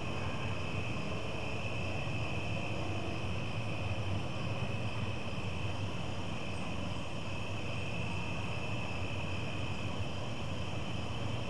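Evening insect chorus of crickets: a steady, unbroken high-pitched trilling, over a low distant rumble that swells slightly now and then.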